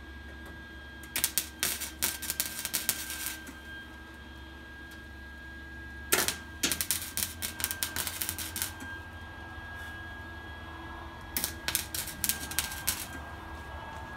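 Wire-feed welder arc crackling in three short runs of a couple of seconds each, stopping in between: tack welds going onto a thin sheet-steel patch.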